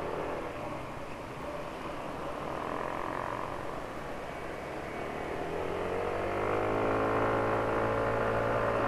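Yamaha automatic scooter's engine running under way, with road and wind noise; about five and a half seconds in the engine note climbs steadily and grows louder as the scooter accelerates.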